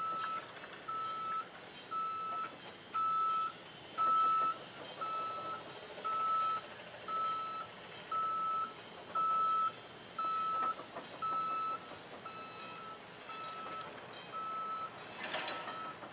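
Reversing alarm of a 1977 Flyer E-800 electric trolley bus backing up during a wye turnaround: steady single-pitch beeps, about one a second and each about half a second long. A short clatter comes near the end.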